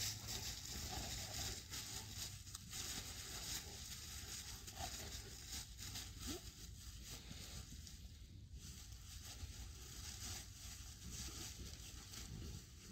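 Dry fallen leaves crackling and rustling under large dogs wrestling and rolling in them, an irregular scuffling crunch.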